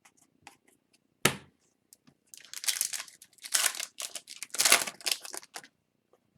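Foil wrapper of a hockey card pack being torn open and crinkled in a few rustling bursts, after a single sharp click about a second in.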